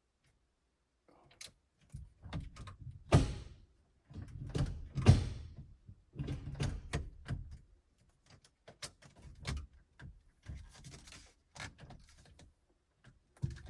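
Hands working on a truck's steering column and shift-indicator parts: irregular clicks, knocks and rattles of small parts being handled, with two louder thumps about three and five seconds in.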